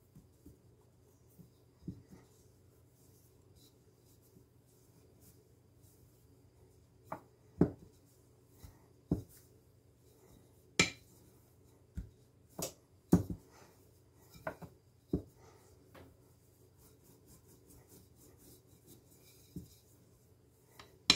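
A thin rolling pin rolling out dough on a countertop: quiet rubbing, broken by scattered sharp knocks and taps as the pin meets the counter. The knocks come thickest through the middle, with a louder one at the end, over a faint steady low hum.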